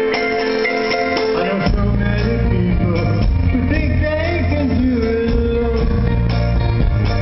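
Live band playing a song, heard from the audience: sustained keyboard and guitar chords, with bass and drums coming in about a second and a half in and a voice singing over them.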